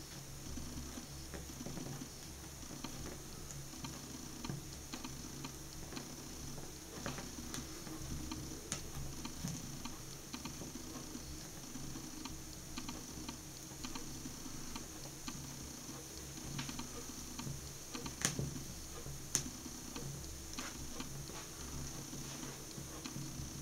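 A burning ballerina slip-on shoe crackling and ticking softly as it burns, with scattered small pops and two sharper pops about three quarters of the way through.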